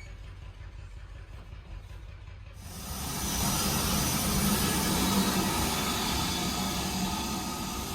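Steam locomotive: a low rumble, then about three seconds in a sudden loud hiss of steam that slowly eases.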